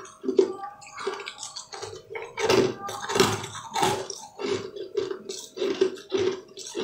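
Close-miked biting and chewing of crunchy, sugar-crusted jelly candy balls: irregular crisp crunches, several a second, mixed with wet squishing mouth sounds.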